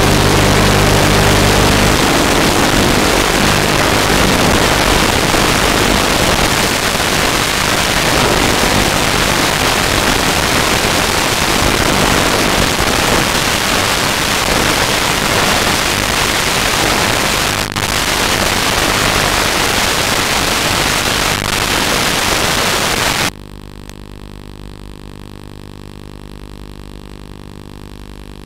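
Loud, even static hiss from an analog FPV video link. It cuts off suddenly about 23 seconds in, giving way to a much quieter steady hum made of several tones.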